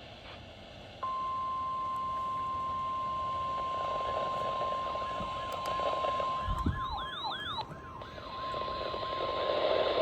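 NOAA Weather Radio warning alarm tone: a steady single-pitch tone that starts about a second in and holds, the alert that comes before a warning message. Behind it a siren yelps in rapid rising and falling sweeps, loudest for about a second near the middle.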